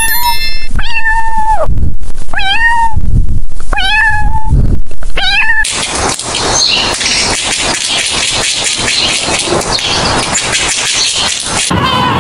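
Domestic cat meowing four times, each call sliding up and then falling away, the first the longest. The meows are followed by about six seconds of dense, crackling noise.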